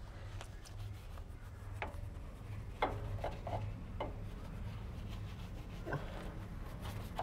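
Detailing brush scrubbing a truck's coil spring and suspension parts: faint rubbing of bristles, with scattered knocks and clicks where the brush meets the metal, over a steady low hum.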